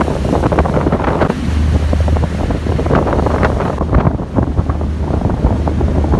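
Wind buffeting the microphone on a moving ferry at sea, over water rushing and splashing along the hull in rough waves, with a steady low engine hum underneath.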